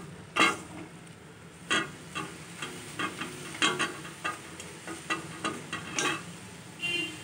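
A wooden spatula stirring and turning leafy greens in a metal kadhai, with short knocks and scrapes against the pan at irregular intervals, about one or two a second, over a faint sizzle of the greens frying.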